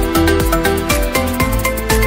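Background music with a steady beat, about three beats a second, under held melodic tones.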